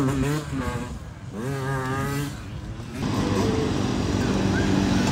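Two-stroke dirt bike engine revved in two short rising blips. From about three seconds in, several dirt bike engines run together, steadier and growing louder.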